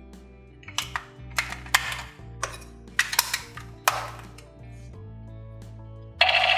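Backing music with a string of sharp plastic clacks and knocks, about seven in three seconds. Near the end, a loud buzzing electronic toy gun sound effect cuts in suddenly.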